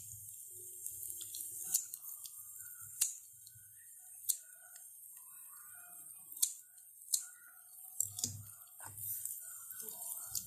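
Scissors snipping fresh curry leaves: about half a dozen sharp snips, a second or so apart.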